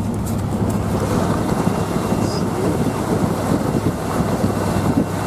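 Old vehicle driving along a mountain road: a steady low engine drone with rumbling road noise, and wind buffeting the microphone.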